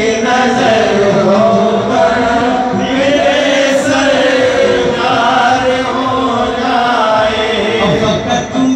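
A man's voice chanting a naat, a devotional song in praise of the Prophet, into a handheld microphone in long melodic lines.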